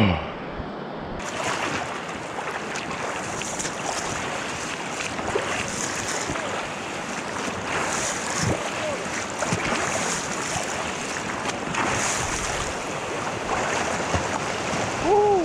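Fast, cold spring-flood river water rushing through a rapid close to the microphone, with a brighter splash every second or two. A short falling cry sounds near the end.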